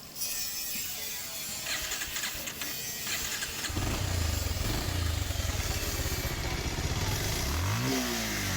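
Bajaj Pulsar motorcycle's single-cylinder engine starting about three and a half seconds in, then idling, with one quick rev near the end. The engine has just been fitted with a new timing chain and balancer to cure a noisy top end.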